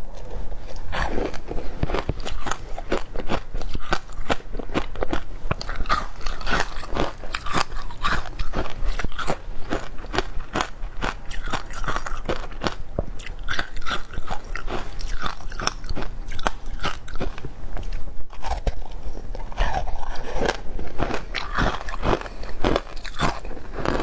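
Shaved ice being bitten and chewed close to the microphone: a dense, continuous run of crisp crunches, easing briefly near the end.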